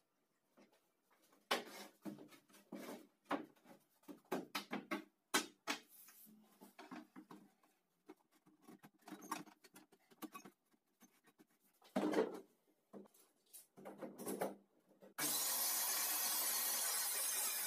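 Knocks, clicks and scraping as a circular saw is handled and set in place on a board. About fifteen seconds in, the circular saw switches on abruptly and runs steadily with its blade spinning free, not cutting.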